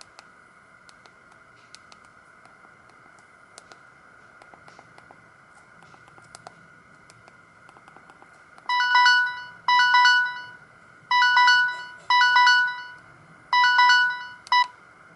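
Samsung GT-E2120 mobile phone's built-in ringtone playing through its small speaker: a short melody of bright beeping notes in five quick phrases, starting about nine seconds in and stopping just before the end. Before it, only faint clicks over a low hum.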